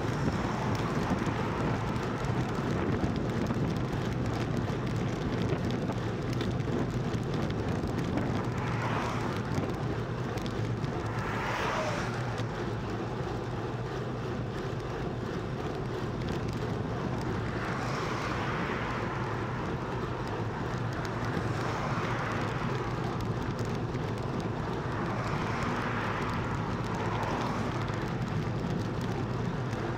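Steady rush of wind and road noise on the camera of a moving road bike, with a constant low hum underneath. About six broad swells of noise rise and fade along the way.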